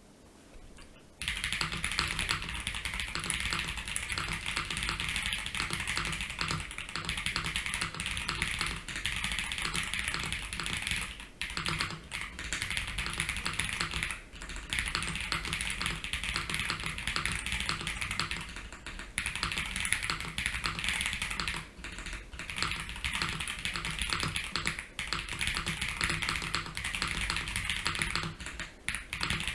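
Steady typing on a custom mechanical keyboard with unlubed dk Saru tactile switches, polycarbonate plate, foam-dampened case and GMK keycaps: a continuous run of key clacks starting about a second in, broken by a few short pauses. The switches, stock and unlubed, are a bit pingy.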